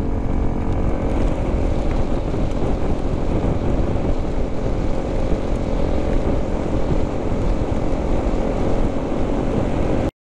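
Honda CRF300 Rally's single-cylinder engine running at a steady cruise on a gravel road, mixed with wind rush and tyre noise from the gravel. It cuts off abruptly near the end.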